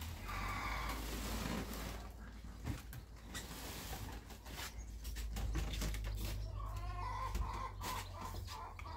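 Knocks and clatter of an old wooden cabinet being handled and shifted. Chickens cluck repeatedly in the last few seconds.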